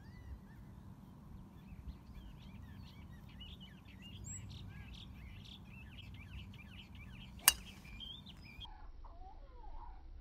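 Small birds chirping over steady outdoor background noise, with one sharp, loud click of a golf club striking a ball off the tee about seven and a half seconds in. After it the chirping continues lower in pitch.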